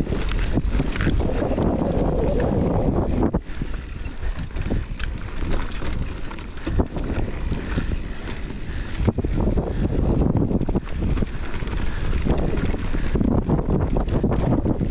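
Mountain bike descending a dirt and rock trail at speed: wind buffeting the microphone, tyres rolling over dirt and stones, and frequent short clatters as the bike goes over bumps.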